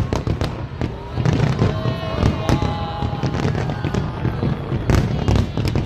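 Large aerial fireworks display: many sharp shell bursts in quick, overlapping succession over a continuous low rumble.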